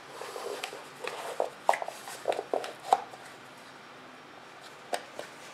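Handling noises from a model jet's drag chute and its tube: a string of short rustles, clicks and brief squeaks, then two sharp clicks near the end.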